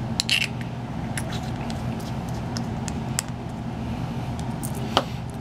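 Scattered light clicks and taps as tiny metallic hot-fix stones and their small clear plastic jar are handled, with a sharper click about five seconds in, over a steady low hum.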